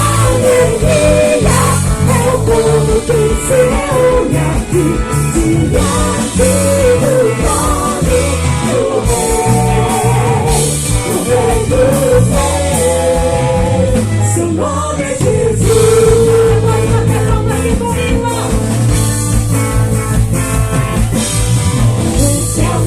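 Gospel band playing live: a singer over guitar and drum kit, with one long held sung note about two-thirds of the way through.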